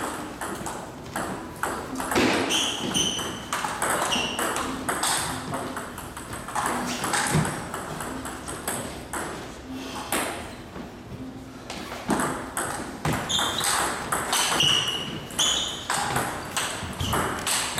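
Table tennis balls being struck by paddles and bouncing on tables in rallies: a quick, irregular series of sharp clicks and pings, with a few short high ringing tones among them.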